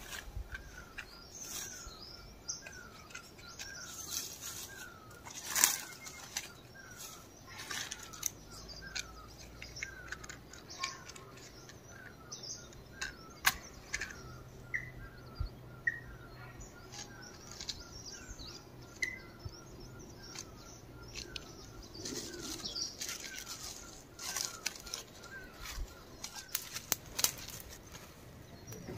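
Irregular rustling and sharp clicks, with a bird repeating a short call note steadily in the background and giving a few higher notes partway through.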